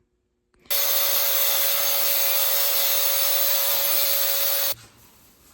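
A power tool running steadily: a constant whine under a loud hiss. It cuts in sharply about a second in and stops abruptly near the end.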